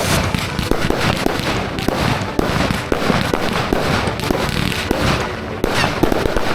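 Consumer fireworks going off in quick succession: a dense run of sharp bangs and crackling, with a few louder reports standing out.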